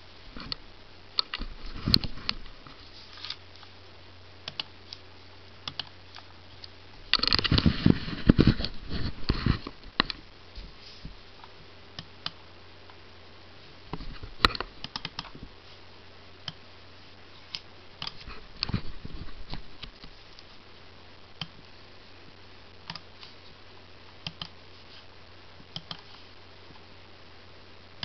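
Scattered sharp clicks of a laptop's touchpad buttons, with bursts of rustling handling noise, the loudest about eight seconds in, over a low steady hum.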